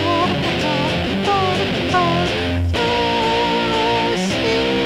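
Electric guitar music: held lead notes that bend and slide in pitch over a steady backing.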